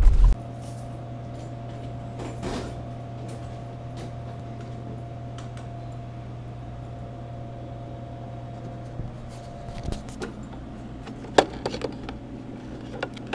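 Steady electrical hum with a faint higher steady tone, which stops about ten seconds in. Then come several sharp clicks and knocks as the bill acceptor cash box of a snack vending machine is opened and handled.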